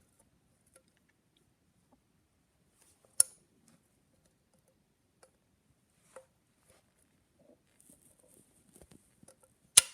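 Small metal parts of a phonograph back bracket being handled and fitted together: a sharp metallic click about three seconds in, faint ticks and scrapes later, and a loud click near the end as the spring-loaded shaft goes into place.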